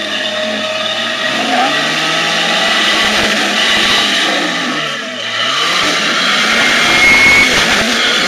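Lifted Jeep Cherokee XJ's engine revving as it climbs a rock ledge, the revs dipping about five seconds in and rising again near the end as a tyre spins and throws dirt.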